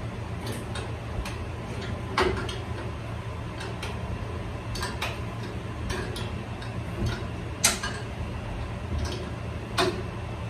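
Scattered sharp metallic clicks and knocks from hands and tools working on a fan motor and its mounting, over a steady low hum. The loudest knocks come about two seconds in, around three-quarters of the way through, and near the end.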